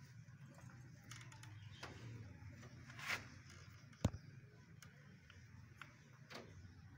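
Quiet rustling of fresh green fodder as a group of rabbits feeds on it, with scattered small clicks. There is a brief swish about three seconds in and one sharp click just after four seconds.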